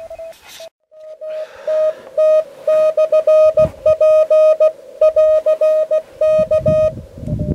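Morse code (CW) from a portable amateur HF transceiver's speaker: a single steady beep keyed rapidly on and off in dots and dashes. A low rumble comes in near the end.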